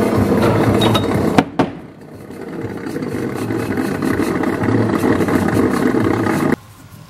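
Drill press running while drilling a steel tube, with two sharp clicks about a second and a half in. The running sound then drops away, builds back up and cuts off abruptly near the end.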